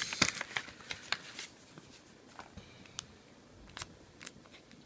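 Plastic screen-protector packaging being handled: crinkling and rustling for about the first second, then a few scattered light clicks and taps.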